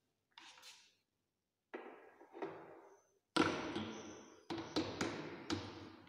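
Knocks and clunks from a long red insulated high-voltage tube on a DC test set being handled and refitted to reverse the polarity. A few light knocks, then the loudest clunk a little past three seconds in, then three sharp taps.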